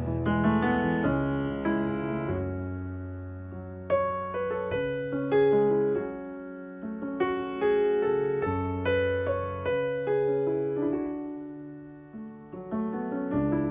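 Background music: a slow piano passage, with notes and chords struck and left to ring out over low held bass notes.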